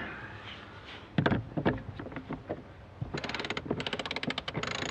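Harken two-speed sailboat winch being cranked with a winch handle: a few knocks, then from about three seconds in its pawls click rapidly and evenly as the drum turns. The clicking is the freshly serviced pawls engaging, giving positive non-reversal.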